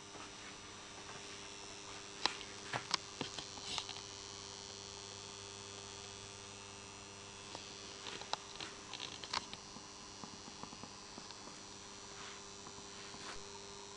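Steady electrical mains hum from a burning Tesla SHC 400 W high-pressure sodium lamp, with scattered small clicks and taps, one cluster about two to four seconds in and another around eight to nine seconds in.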